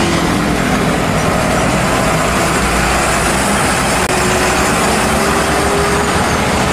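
A loaded car-carrier truck's diesel engine running as the truck drives past, under a steady rush of road noise.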